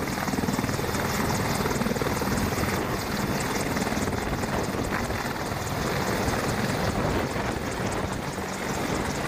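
AH-64 Apache attack helicopter lifting off and hovering low, its rotors beating in a rapid steady chop over the engine noise.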